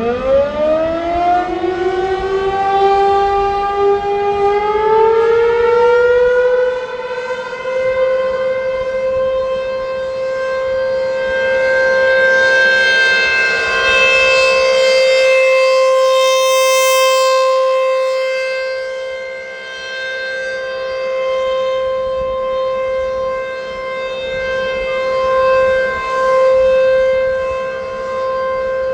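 American Signal T-135 AC/DC warning siren winding up: its pitch climbs steeply, hangs for a couple of seconds, then steps up again about five seconds in before settling into a steady wail whose loudness slowly swells and dips. The hitch on startup is the siren being wonky, its controller hunting between DC and rectifier power before staying on rectifier.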